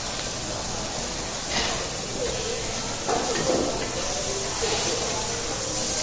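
Oysters and sliced onion sizzling with a steady hiss on a steel teppanyaki griddle, with a few short scrapes of metal spatulas as the food is scooped and turned.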